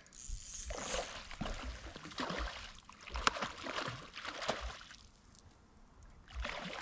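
A river carp, just struck by a slingshot fishing arrow, thrashing at the water's surface: irregular splashing and sloshing for about five seconds, then quieter.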